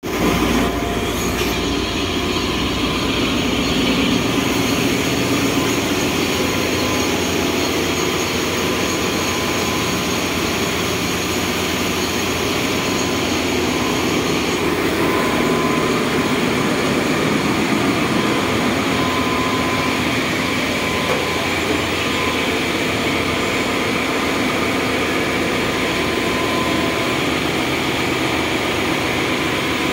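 Ship's engine-room machinery running: a loud, steady, unbroken drone of engines and auxiliary machines, with a faint steady whine over it.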